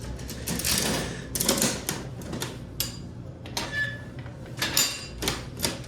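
Coin-operated vending machine taking quarters: a string of sharp clicks and clatters as coins drop in and its mechanism moves.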